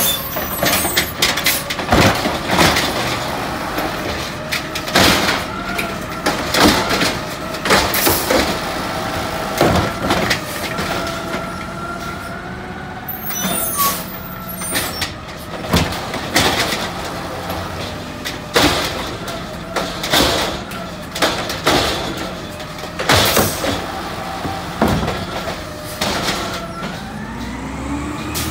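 Automated side-loader garbage truck with a natural-gas engine running slowly, with a steady whine and repeated sharp clanks and bangs from the truck every second or two.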